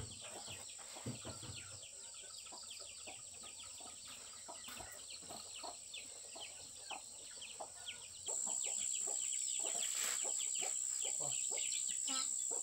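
Chickens and small birds give many short, quick chirps, over a steady high insect drone. Everything jumps louder about eight seconds in.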